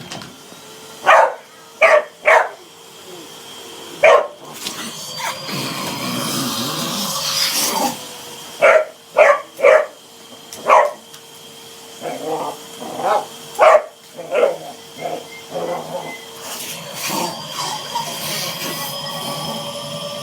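Dog barking in short sharp barks, in clusters of two or three, over the steady hum and whine of a running vacuum cleaner. A louder rush of noise swells for a few seconds about a quarter of the way in.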